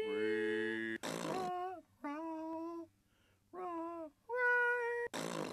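Wordless sung or hummed notes: a run of held tones that bend and slide in pitch, with short gaps between them. Two brief bursts of hiss come about a second in and just before the sound cuts off.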